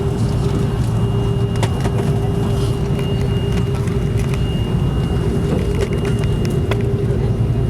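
Cabin noise of an Airbus A330-200 taxiing after landing: a steady low rumble with a constant hum through it, and a couple of faint clicks.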